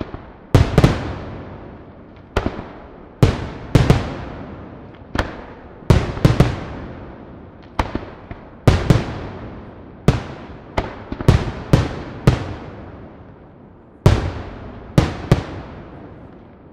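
Aerial firework shells bursting in quick, irregular succession: some twenty sharp bangs, often two or three close together, each trailing off in a long echo.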